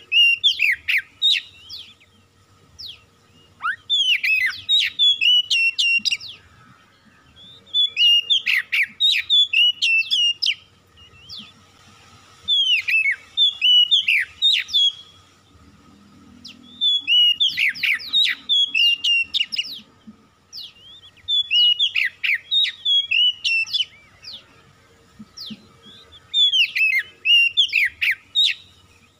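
Oriental magpie-robin singing: short phrases of quick, varied whistles and sweeping notes, each about two seconds long, repeated roughly every four seconds with brief pauses between.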